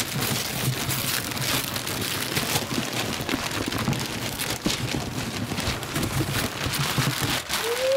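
Several people ripping and crumpling Christmas wrapping paper off gift boxes at the same time, making a dense, continuous crackle of tearing paper.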